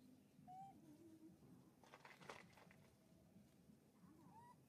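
Faint, scattered short animal calls with a brief rustle of leaves and twigs about two seconds in.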